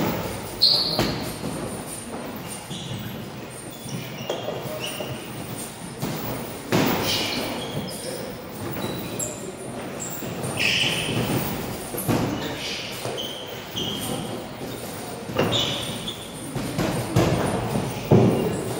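Irregular thuds of gloved punches and shin-guarded kicks landing in kickboxing sparring, with a few sharper, louder hits among them, over the scuffing of feet on a wooden floor.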